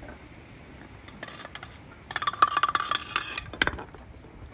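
Hard metallic clinking and rattling, as of a metal object being knocked about by playing puppies. It comes as a short run of clinks about a second in, then a denser rattle from about two seconds to three and a half with a brief ring, and a few last clinks after.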